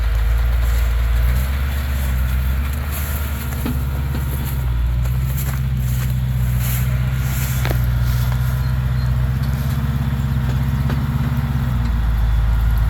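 Off-road truck engine running at low revs, its pitch stepping up about a second and a half in and dropping back near the end, with a few faint clicks and knocks.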